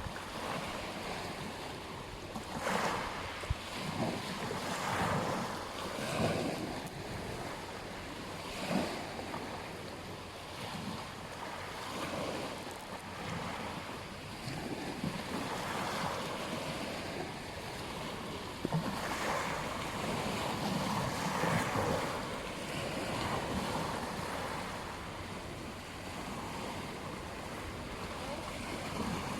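Ocean waves breaking and washing on a beach, a continuous surf hiss that swells every few seconds, with wind buffeting the microphone.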